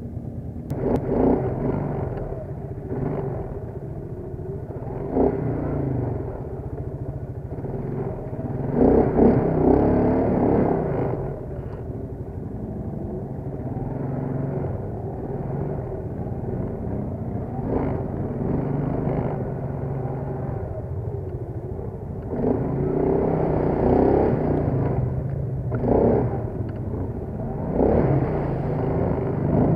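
Quad bike (ATV) engine running under load over rough dirt, revving up in repeated surges with dips between, loudest about nine to ten seconds in and again several times near the end.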